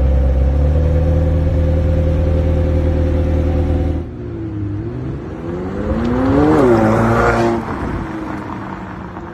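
McLaren 720S twin-turbo V8 running at a steady speed, then, after an abrupt change about four seconds in, revving up once and dropping back.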